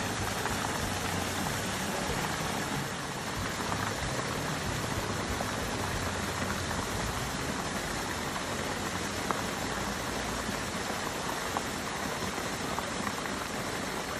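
Steady rush of shallow river water, an even hiss with a few faint ticks.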